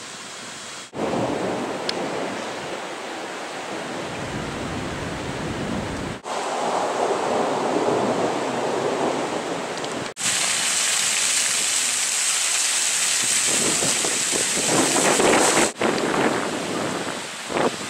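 Steady noise of wind and rain in a severe thunderstorm, with wind buffeting the microphone. The noise breaks off abruptly and resumes several times.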